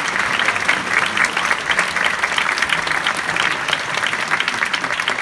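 Large seated audience applauding steadily in a theatre hall, a dense unbroken patter of many hands clapping.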